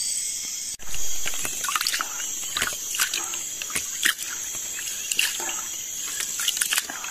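Steady high-pitched chorus of forest insects, with a run of irregular small clicks and taps over it from about a second in.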